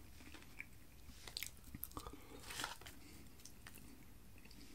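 Faint chewing of a mouthful of loaded waffle fries and battered chicken, with a few soft crunches and clicks scattered through.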